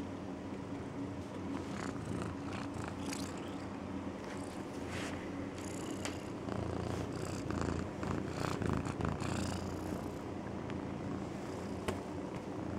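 A domestic cat snoring in her sleep: a steady, purr-like low rumble that swells a little louder past the middle, with a few brief higher breathy noises mixed in.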